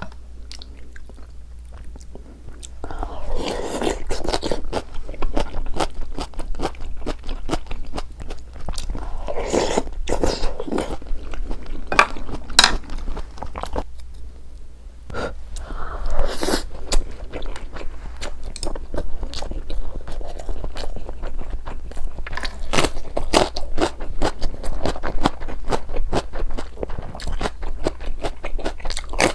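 Close-miked eating of spicy soft tofu soup and rolled omelet: chewing and biting, with many short clicks of mouth and food. It is quieter for the first couple of seconds, with a steady low hum underneath.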